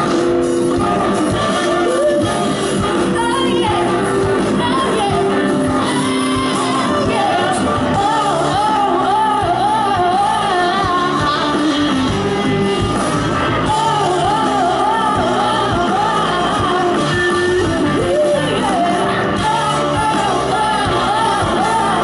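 Live soul-rock band: a female lead singer holding notes with wide vibrato over electric guitar, bass, drums and horns, heard loud through the PA.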